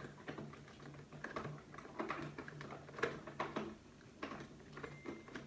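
Irregular light clicks and taps of plastic toy parts being handled and fitted together.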